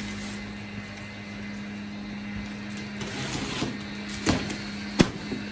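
A large cardboard box holding a 26-inch wheel being handled: cardboard scuffing and rustling, a thump about four seconds in, and a sharp knock about a second later, over a steady low hum.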